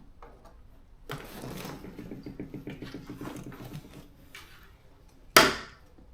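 Hands working on a car seat's parts: about three seconds of rattling and rubbing with a fast, even rhythm, then one sharp knock near the end.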